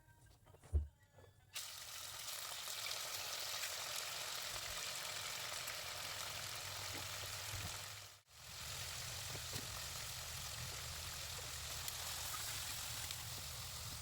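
Chicken pieces sizzling steadily in hot oil with whole spices in a pot. A short knock comes just under a second in, before the sizzle starts at about a second and a half; the sizzle drops out for a moment a little past the middle.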